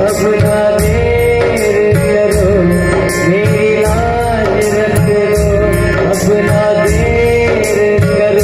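Instrumental interlude of a Hindi Shiva bhajan: a lead melody with bending pitch over a steady, fast drum beat and heavy bass.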